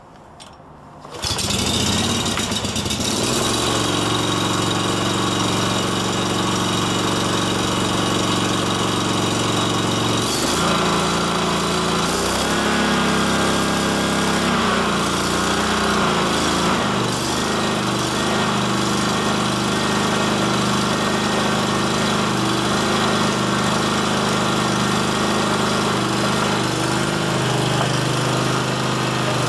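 SCAG 52-inch Advantage walk-behind hydro mower's 19 hp Kawasaki twin-cylinder engine starting about a second in and then running steadily, its note shifting a few times.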